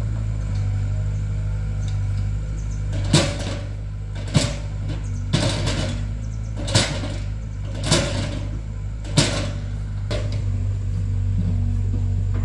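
Excavator's diesel engine running steadily, with about seven sharp knocks a little over a second apart in the middle stretch.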